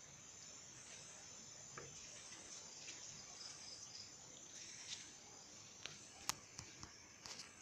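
Faint, steady high chirring of crickets and other night insects. A few sharp clicks come in the last two seconds, one much louder than the rest.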